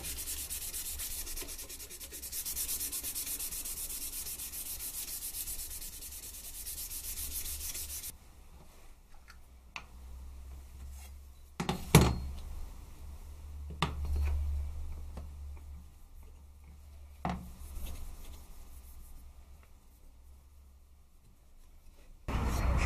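Wooden knife handle being sanded by hand, a steady rubbing hiss of quick strokes that stops about eight seconds in. After that come a few sharp knocks on the workbench, the loudest about twelve seconds in.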